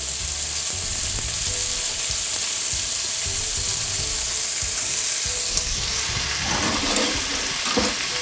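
Steady sizzle of raw rice frying in hot garlic-flavoured oil, with irregular stirring scrapes a bit louder near the end.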